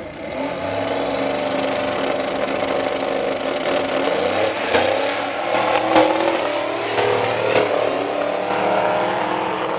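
Two first-generation Chevrolet Camaro drag cars at full throttle, launching and accelerating hard down the strip side by side. A high whine climbs over the first few seconds, and a few sharp cracks come in the middle as the engines pull through the gears.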